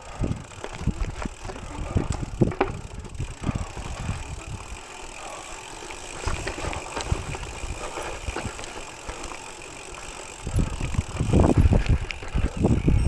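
Gravel bike rattling and knocking as it rolls over a rough, rocky dirt trail, its tyres crunching on loose stones. The jolts come irregularly, ease off in the middle and turn louder and rougher near the end.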